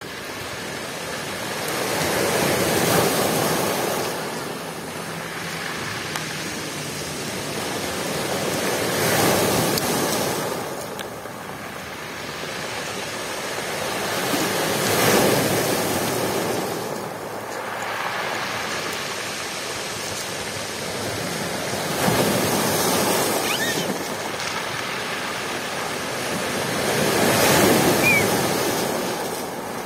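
Sea waves breaking on a pebble beach and rocks, the surf swelling to a peak about every six seconds and easing off in between.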